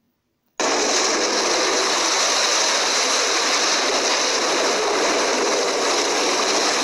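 Silent for about half a second, then a sudden, loud, steady rush of wind on the microphone and churning water, from a phone filming from a watercraft running at speed alongside a jet ski.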